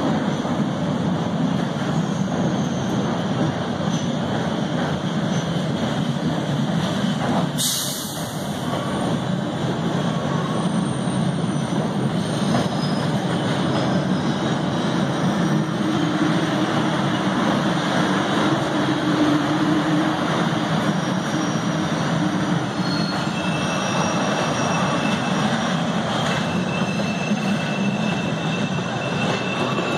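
MBTA Red Line subway train running through an underground station, a steady rumble of steel wheels on rail. Near the end a thin, high-pitched wheel squeal sets in.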